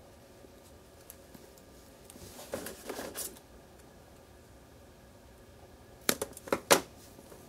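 Small scissors snipping the foam tape wrapped around a 6mm micro motor: four quick, sharp snips near the end. A brief rustle of handling comes about a third of the way in.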